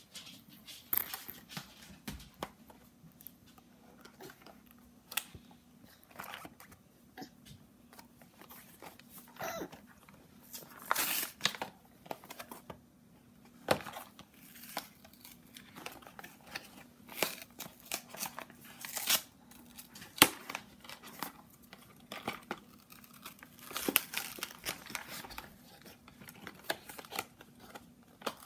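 Cardboard blind box and its paper and foil packaging being torn open and crinkled by hand, in irregular short rips and rustles.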